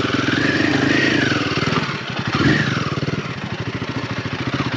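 Royal Enfield Himalayan 450's single-cylinder engine revving up and down under throttle. It dips and picks up again about two seconds in, then runs on steadily with an even beat.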